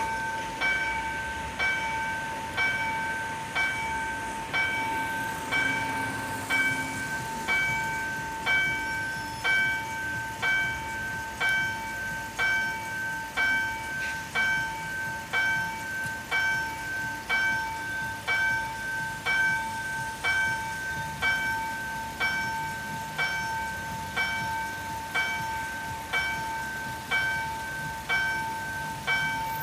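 Railway level-crossing warning bell striking in a steady, even rhythm, about three strikes every two seconds over a continuous ringing tone, warning road traffic that a train is coming.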